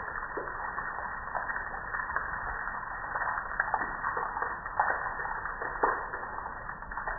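Soapy water running and dripping off a gas grill onto concrete: a steady patter of drips with a few louder splats now and then.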